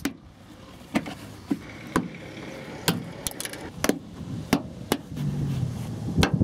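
Sharp clicks and taps of a thin metal pick tool prying at a plastic push clip in a carpeted trunk-lid liner, about one every half second to second. From about five seconds in there is a rubbing rustle of cloth gloves against the liner.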